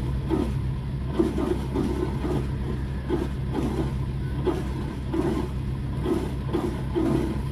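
Sailboat's inboard engine idling steadily, a low even hum with uneven pulses over it.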